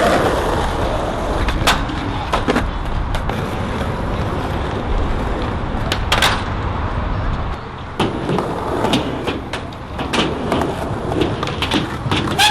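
Skateboard wheels rolling on concrete with a steady low rumble that cuts out about seven and a half seconds in, followed by a run of sharp clacks and knocks from the board.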